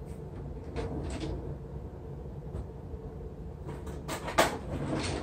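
Household drawer being opened, rummaged through for a knife and shut: a few scattered knocks and clatters, the loudest clunk about four seconds in.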